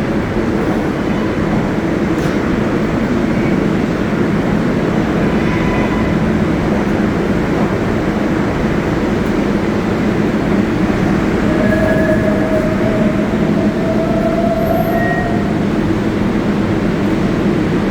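New York City Subway 7-line train running through the station, a loud steady rumble with a low motor hum. A higher tone joins it from about twelve seconds in, rises slightly and fades out about three seconds later.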